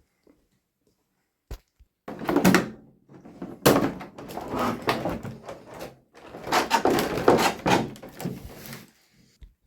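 Toy packaging being handled and opened by hand: cardboard and plastic rustling, scraping and sliding in three bursts, after a single click.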